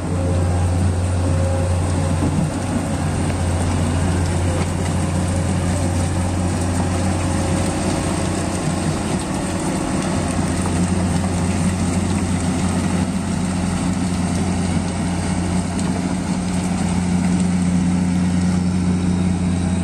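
Komatsu PC200 hydraulic excavator's diesel engine running steadily with a low, even hum, growing a little louder near the end.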